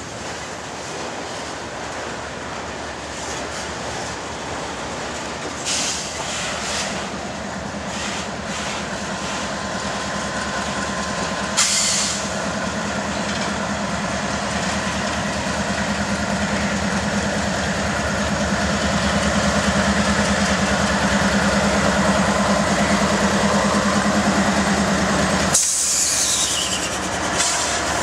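Norfolk Southern GE diesel-electric freight locomotives running as they roll past, the engine sound growing louder as they come closer, with a couple of sharp wheel clicks over the rails.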